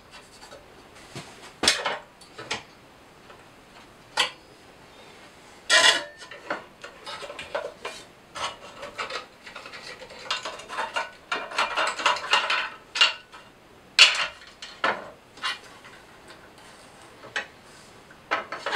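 Hand-handling noise at a stopped scroll saw: scattered clicks and knocks of the wooden workpiece and blade clamp against the saw table, with a stretch of rubbing and scraping past the middle as the sanding blade is unclipped and drawn out of the piece.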